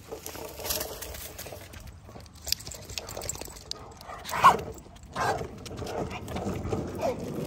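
Skateboard wheels rolling over concrete pavement, with clicks over the joints in the road. A short pitched squeal cuts through about four and a half seconds in.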